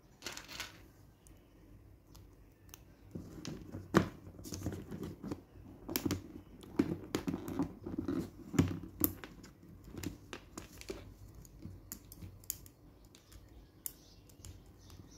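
LEGO Technic plastic frames and connector pins from a Spike Prime set being handled and pushed together: a string of sharp plastic clicks and rattles, the loudest snap about four seconds in.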